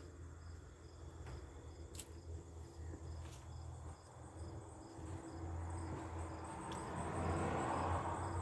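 Crickets chirping steadily, about two to three high chirps a second, over a low rumble; a couple of sharp clicks, and a rushing noise building in the second half.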